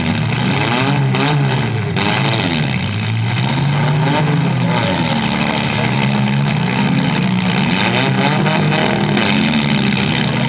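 Engines of several compact demolition derby cars revving up and dropping back, over and over, their pitches rising and falling against one another.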